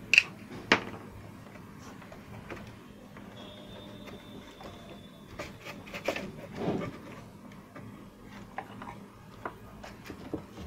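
Scattered clicks and light knocks of tools and parts being handled during a computer repair, with two sharp clicks in the first second.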